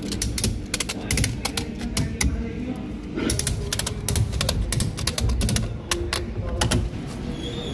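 Ratchet strap buckle being worked by hand: a run of irregular, sharp metal clicks as the strap is ratcheted tight to clamp the bat in place on the knocking machine.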